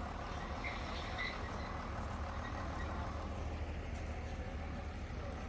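Heavy diesel machinery engine running steadily, a low even rumble with a couple of faint high squeaks about a second in.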